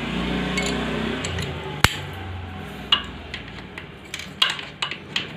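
Metal hand tools clinking against engine parts while the bolt of a motorcycle timing chain tensioner arm is being fastened: one sharp click about two seconds in, then several lighter clicks near the end.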